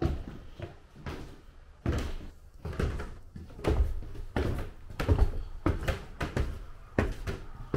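A string of dull thuds and knocks, irregular at roughly two a second.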